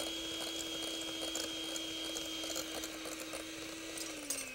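Electric hand mixer running steadily, beating egg yolks and oil into a thickening mayonnaise, a steady motor whine with light clicking. About four seconds in it is switched off and its pitch falls as the motor winds down.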